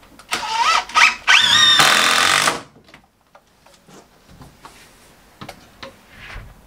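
Cordless drill driving a screw into a door frame: the motor whines up in pitch in three quick trigger pulls, the last held for over a second; the owner says the drill's brushes are worn out. After it, a few light knocks and taps.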